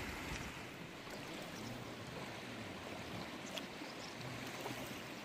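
Faint, steady rush of a flowing river.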